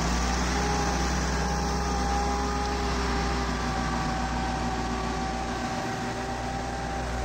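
Massey Ferguson 375's Perkins four-cylinder diesel engine running steadily under load as the tractor drags a rear blade through loose soil.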